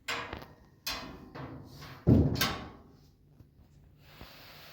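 A few knocks and thumps, with one heavy thud about two seconds in.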